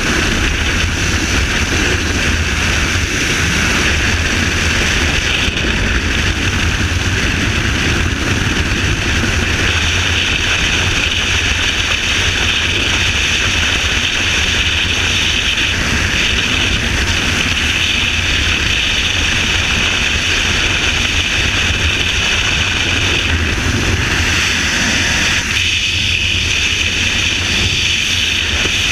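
Freefall wind rushing over a helmet-mounted camera: a loud, steady rush with a deep rumble underneath and a hiss on top.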